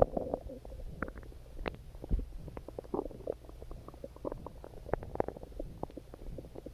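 Hungry, empty stomach growling: a run of short gurgles and small pops over a low rumble, with a sharper pop right at the start.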